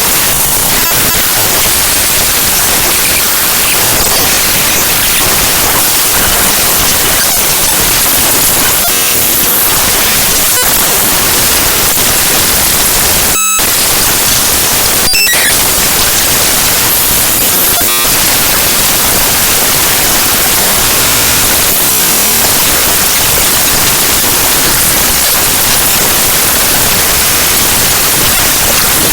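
Raw binary data of the gkmedias.dll library file played back directly as audio: loud, harsh digital static that hisses and crackles with no tune. It breaks off briefly about halfway through, then carries on.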